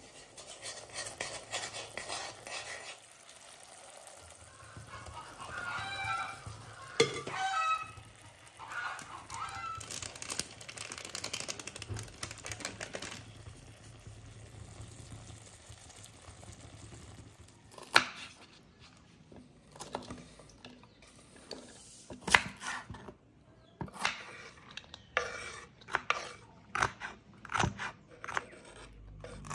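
Kitchen cooking sounds: a metal spoon scraping and squelching in thick chilli paste, a stretch of stir-frying in a wok, and toward the end a chef's knife slicing a red chilli on a wooden cutting board in a run of sharp, repeated knocks.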